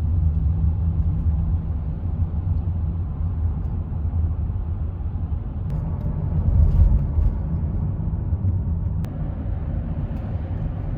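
Minivan driving, heard from inside the cabin: a steady low engine and road rumble.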